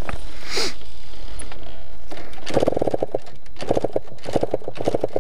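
Yamaha DT 125 two-stroke single being cranked over and coughing in several short bursts of rapid pulses without catching, starting about two and a half seconds in. The riders suspect the tank is out of fuel.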